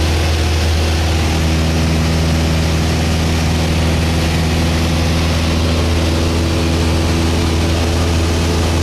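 Light propeller aircraft's engine and propeller running steadily in flight, heard inside the cabin as a constant low drone with a hiss of airflow.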